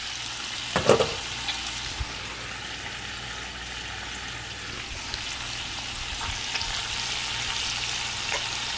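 Bacon sizzling in a frying pan on the stove, a steady crackling hiss of fat. A brief louder sound stands out about a second in.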